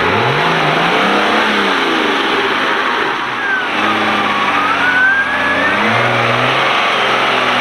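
Off-road buggy's engine revving up and down under load while crawling on a tow line. A thin whine rises in pitch through the middle.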